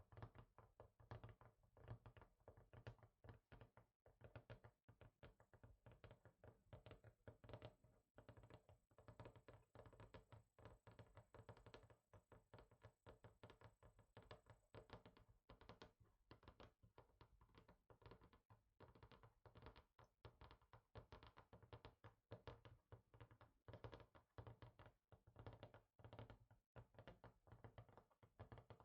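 Rapid, quiet tapping on a hard surface, many light taps a second without a break.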